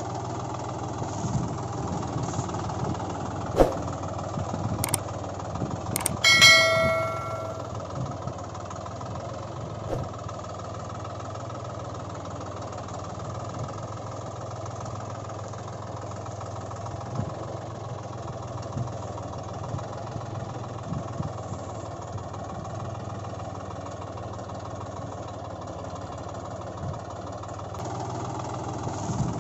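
Steady low engine hum, like a tractor engine idling, with a few sharp clicks in the first six seconds and a single bell-like ding about six seconds in that rings out for about a second.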